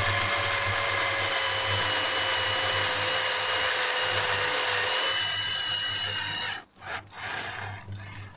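Power drill driving a screw: a steady motor whine that sinks slowly in pitch as it loads up, then fades and stops about six and a half seconds in, followed by a few brief handling noises.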